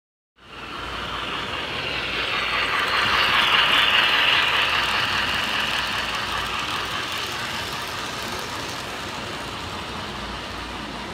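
Model train rolling past close by: a steady rumble and clatter of metal wheels on the track. It starts suddenly just under half a second in, is loudest about three to four seconds in, and eases off as the cars go by.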